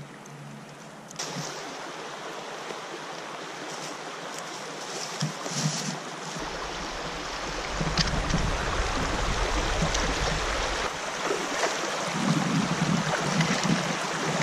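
Shallow river water rushing over rocks, with splashing footsteps of someone wading across. The rush starts about a second in and grows louder around the middle.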